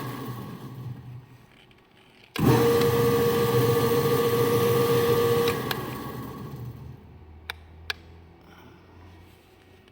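Welding positioner's electric drive motor and gearbox winding down to a stop, then starting abruptly with a steady whine, running for about three seconds and winding down again. Two sharp clicks follow close together.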